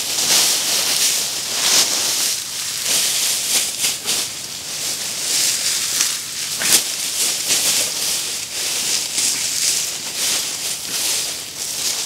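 Grass stalks and dry leaf litter rustling and crackling as they are pulled up and gathered by hand, in uneven swells.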